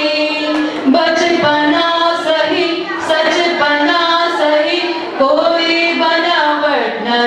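A group of women singing a song together into a microphone, holding each note for up to about a second.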